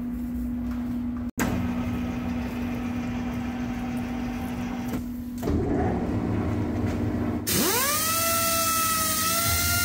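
Lathe running with a steady hum and a hiss of compressed air from a blow gun clearing swarf off a freshly cut thread. Then, about three-quarters of the way in, a hand-held belt file starts on the spinning chrome rod end: its whine rises quickly and then holds steady over a bright grinding hiss.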